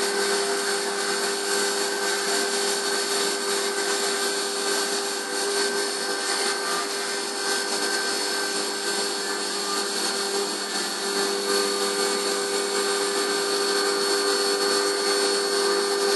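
CNC milling machine running a 6 mm end mill on a finish pass around the outside edge of a shock tower plate: a steady spindle whine over a constant cutting hiss.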